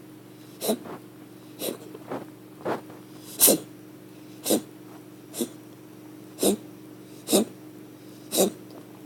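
A pet wheezing: short, noisy breaths about once a second, some closer together, about ten in all. A faint steady hum lies underneath.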